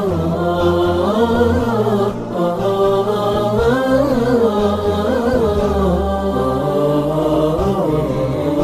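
Wordless, layered vocal chanting of an Arabic nasheed interlude: voices carry a gliding melody over a low sustained drone.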